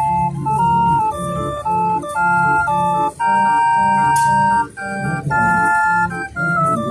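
Hand-cranked portable street organ (barrel organ) playing a tune: sustained pipe notes carry the melody over bass notes repeating about twice a second.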